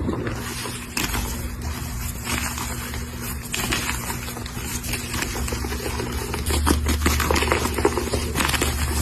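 A coloured gym chalk block being crushed and crumbled, a steady run of crunching and gritty crackling as it breaks apart, over a low hum that grows stronger about two-thirds of the way in.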